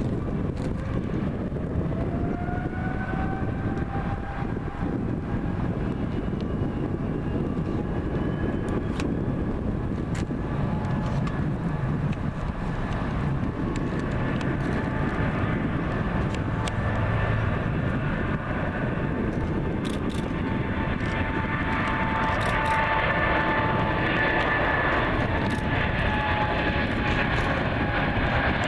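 Boeing 777 freighter's GE90 turbofan engines spooling up to takeoff thrust: a whine rising in pitch over the first few seconds, then steady jet noise with held tones, growing slightly louder in the last several seconds.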